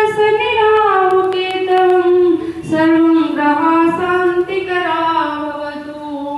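A high voice singing a slow devotional chant in long held notes, the pitch stepping gradually lower from note to note.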